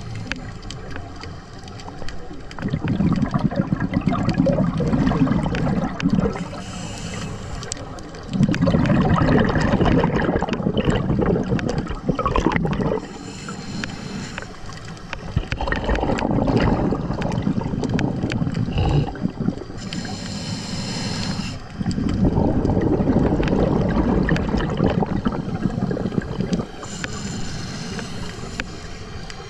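Scuba diver breathing through a regulator underwater: four long bubbling rushes of exhaled air, each followed by a short hiss as the diver breathes in.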